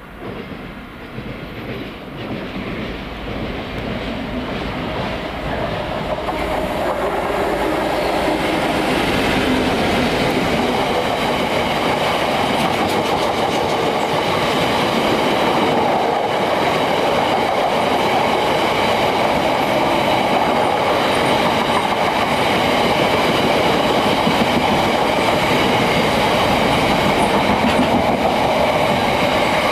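Class 66-hauled freight train passing, growing louder over the first several seconds, then a steady clatter of wagon wheels over the rail joints.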